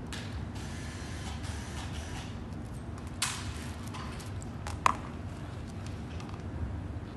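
Plastic plugs and power cords being handled and connected, with a brief rustling burst about three seconds in and a sharp click just before five seconds.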